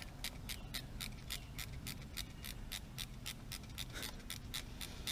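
A calling insect: faint, sharp high chirps in a steady, even rhythm of about five a second.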